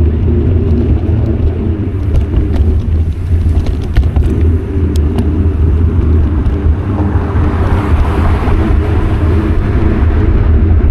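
Wind buffeting the microphone of a bike-mounted action camera while riding, a loud steady low rumble. A higher hiss swells from about seven seconds in and fades near the end.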